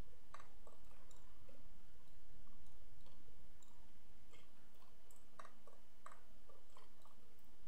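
Faint computer mouse clicks at uneven intervals, a dozen or so over several seconds, over a steady low background hum.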